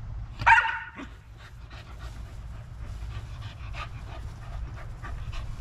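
A dog panting, several breaths a second, with one short loud sound about half a second in.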